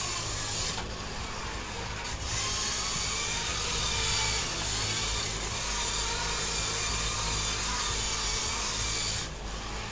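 Small remote-control drift car's electric motor whining steadily as the car runs across a hard floor, dipping briefly a few times, about a second in, at two seconds and near the end.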